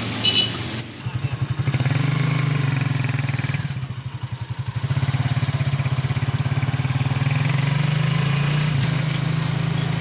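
Motorcycle engine of a sidecar tricycle running under way, heard from inside the sidecar. It dips briefly around four seconds in, then runs steady.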